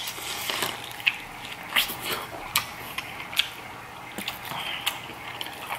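Close-miked eating of corn on the cob: biting and chewing the kernels, heard as an irregular run of sharp, wet clicks and crunches about every half second to second.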